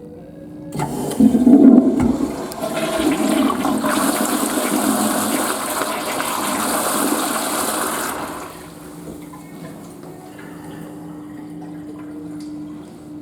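Toilet flushing: water gushes in with a loud gurgle about a second in, runs as a steady rush, and stops about eight seconds in.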